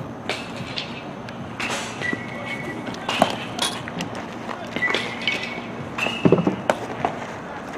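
A baseball pitch popping into the catcher's leather mitt about three seconds in, and the return throw smacking into the pitcher's glove near the end. Behind them is steady outdoor background noise and a few short high squeaks.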